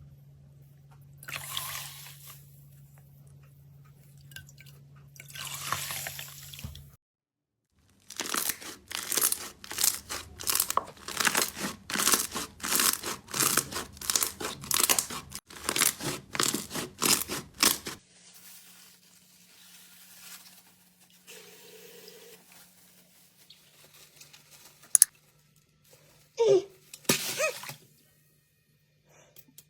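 Crunchy slime being squeezed and pressed by hand. Softer squishes open the stretch, then a run of loud crackling crunches comes at about two a second, then quieter, scattered squishes.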